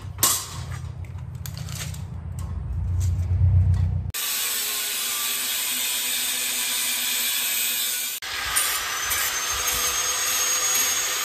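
An angle grinder cutting through 1/8-inch flat steel bar stock held in a bench vise, a loud, steady, hissing grind with a faint high whine. It begins about four seconds in, after a low hum and a few knocks, and breaks off briefly about eight seconds in.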